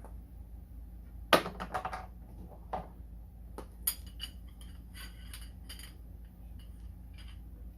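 Metal rear axle and parts of a kids' ride-on electric truck being handled and fitted: one sharp knock about a second in, then scattered light metallic clinks and taps.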